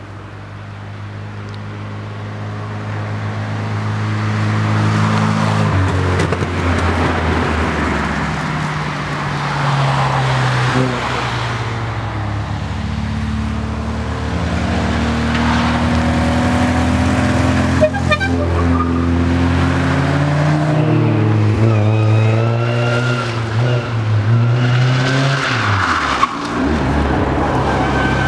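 Older Toyota Corollas driving up a hill road and past, one after another, their engines revving up and down through gear changes. The sound grows louder over the first few seconds as the cars approach.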